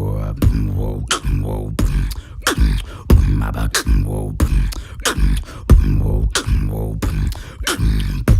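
Vocal beatboxing: a steady rhythm of sharp, snare-like mouth snaps, about three every two seconds, over a continuous low hummed bass that slides in pitch.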